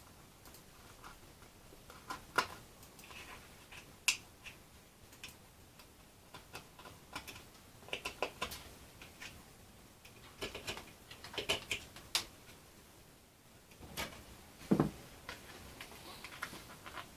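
Irregular clicks and taps of small tools and model-airplane parts being handled on a workbench, with a few louder knocks among quieter ticks.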